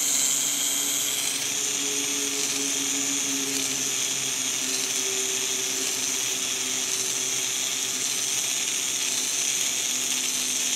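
The small electric motor of a K'nex-built camera dolly running steadily, turning plastic gears that drive a chain to pull the dolly slowly along its track.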